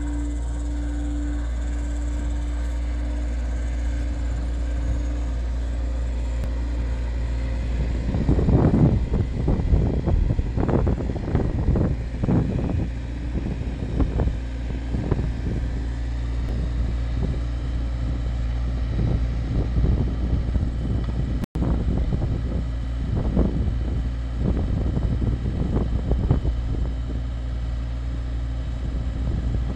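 Takeuchi TB175 compact excavator's diesel engine running steadily under load while its hydraulic earth auger bores into the soil, with a steady whine for the first few seconds and then irregular rough rumbles and knocks from about eight seconds in.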